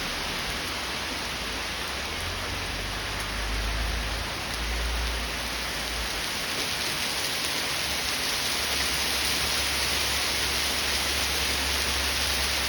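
Hail and heavy rain pelting down in a dense, steady hiss that grows a little louder about eight seconds in.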